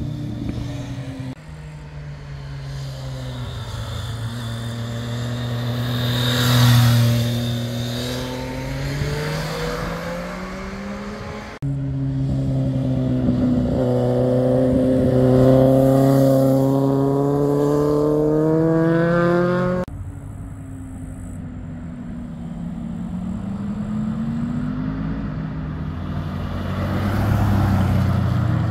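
Motorcycle engines passing one after another through a tight hairpin bend, the pitch dipping as each rider rolls off into the corner and rising again as they accelerate out, with abrupt cuts between passes about a second in, near the middle and about two-thirds of the way through. Near the end a car engine, from a Chevrolet Corvette, runs through the bend.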